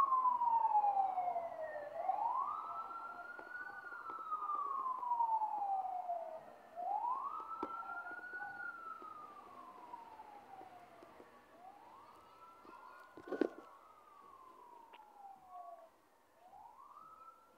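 Emergency vehicle siren wailing, each cycle rising quickly and falling slowly, about every five seconds, growing fainter. A single sharp knock about three-quarters of the way through.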